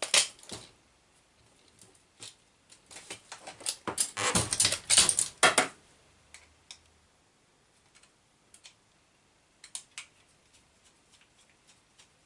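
Metal clattering and knocking as the aluminium chassis of a Raminator RC monster truck is handled and tipped up on end, loudest from about three to six seconds in. After that come scattered light clicks of parts being handled.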